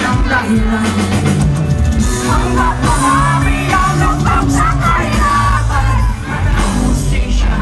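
Live rock band playing loud, with a lead vocal over drums, bass and guitars, captured from the audience in a large hall.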